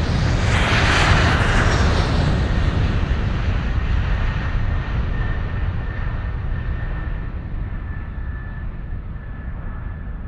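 An aircraft passing, a loud roar that peaks about a second in and then slowly fades as it moves away.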